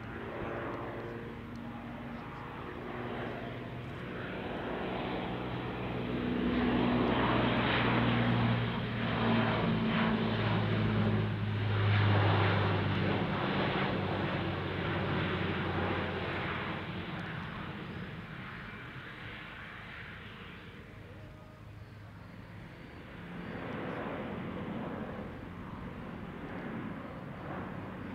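Alenia C-27J Spartan's twin Rolls-Royce AE 2100 turboprop engines and six-blade propellers running in flight, a steady low propeller hum with engine noise. It swells to its loudest about halfway through, fades, then rises again near the end.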